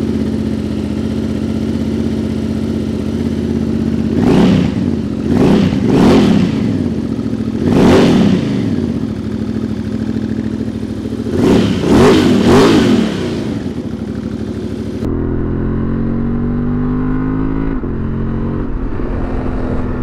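Honda Transalp 750's parallel-twin engine through a Yoshimura RS-12 slip-on muffler, idling with about seven quick throttle blips, a deep barky growl. About three-quarters through, it changes to the engine pulling while riding, rising in pitch, with one upshift.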